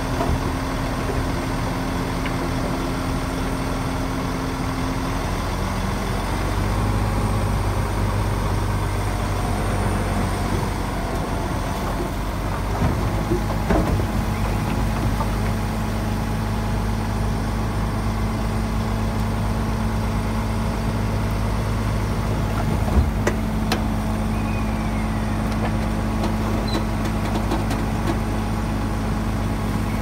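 Heavy diesel engine of earthmoving machinery running steadily; its note shifts and grows fuller about six seconds in. A few sharp clanks come through about halfway and again near the two-thirds mark.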